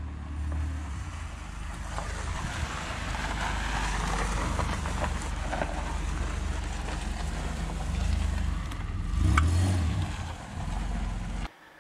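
2006 Honda Civic driving: a steady low engine rumble with road and wind noise, cutting off abruptly near the end.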